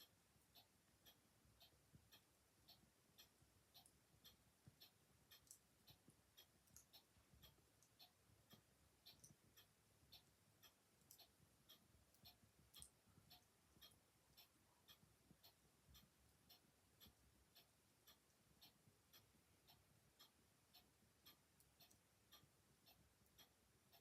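Faint, steady ticking of a clock, about two ticks a second, with the occasional soft crackle of a fire.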